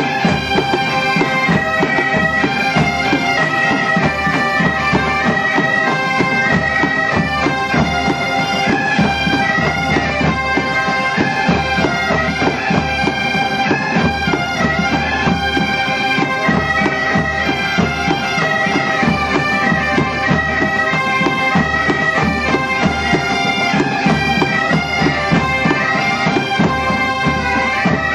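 A large ensemble of Galician gaitas (bagpipes) playing a tune together over a steady drone, with bass and snare drums beating along.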